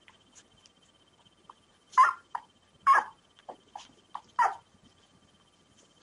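Newborn Rafeiro do Alentejo (Portuguese mastiff) puppies, three days old, squeaking and whimpering. Three louder cries come about two, three and four and a half seconds in, with small squeaks between: the cries of neonatal pups waiting for a feed.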